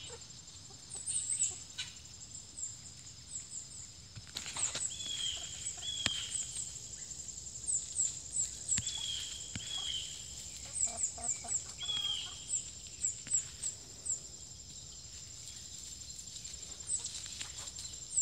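Backyard chickens clucking and calling as they forage, several short falling calls coming in the middle stretch. Behind them runs a steady high-pitched drone with many quick high chirps.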